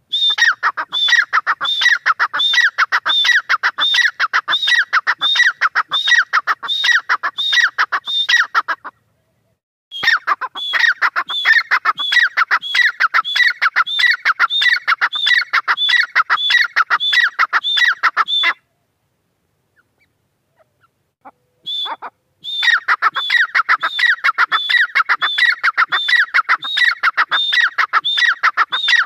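Grey francolin (teetar) calling: long runs of rapid, high, repeated notes in three bouts, with a short break about nine seconds in and a longer pause of a few seconds about two-thirds of the way through.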